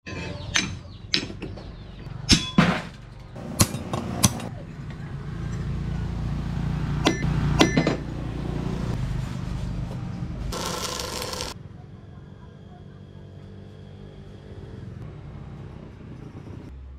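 Steel rebar clinking and clanking against metal as it is laid into the forge: several sharp metallic hits in the first four seconds and two more about seven to eight seconds in, over a low rumble. A short hiss about ten seconds in, then a quieter steady background.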